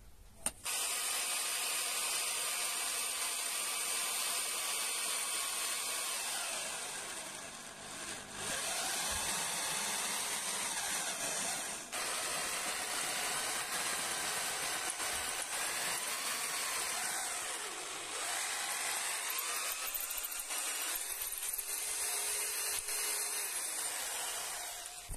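Electric drill boring pin holes through the steel axle and hex coupling of a rotary tiller. It runs steadily with its pitch sagging and rising as the bit bites, with a short slow-down about 8 seconds in and a brief stop about 12 seconds in.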